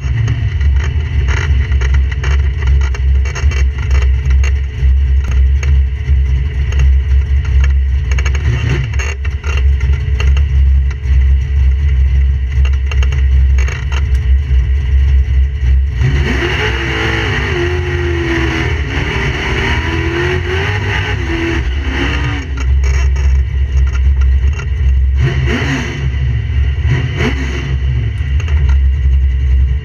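Mustang drag car's engine idling in the staging lanes, heard from inside the cabin as a loud, uneven low rumble. About halfway through, a louder stretch of several seconds has a wavering, rising-and-falling engine note.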